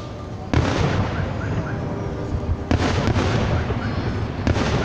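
Aerial fireworks shells bursting: three loud bangs about two seconds apart, each lingering until the next.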